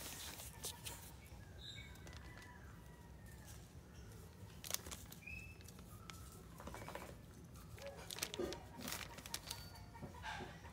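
Quiet ambience: a few faint, short bird chirps and scattered light clicks over a low steady rumble.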